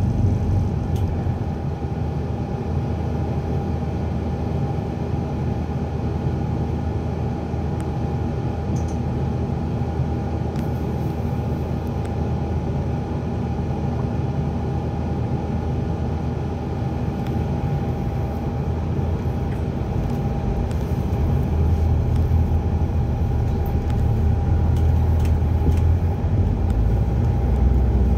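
ADL Enviro 400 Hybrid double-decker bus heard from inside its cabin: a steady low rumble with a constant thin whine while it waits in traffic. About twenty seconds in, the rumble grows louder as the bus pulls away.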